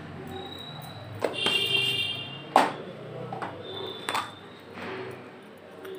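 Ground cumin tipped from a small bowl into a ceramic mixing bowl, the small bowl tapped sharply against it twice, the second tap the loudest. Short high-pitched beeping tones sound three times in the background.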